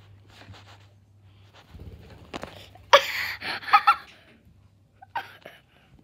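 A sudden, loud vocal outburst from a person about three seconds in, lasting about a second, and a brief shorter one near the end, over a faint steady hum.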